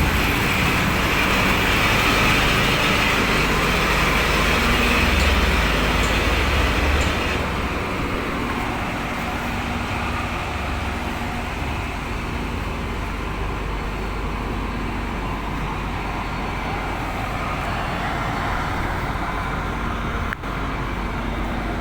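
Komatsu D65P bulldozer's diesel engine running steadily with a deep rumble. It eases off and gets quieter about seven seconds in.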